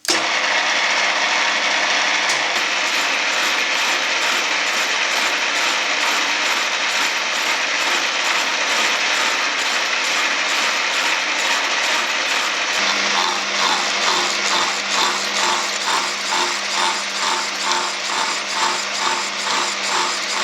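Lathe running in reverse with a milling cutter in its chuck, milling a tooth space in a steel ratchet wheel blank. About 13 seconds in, the sound settles into an even rhythmic pulsing.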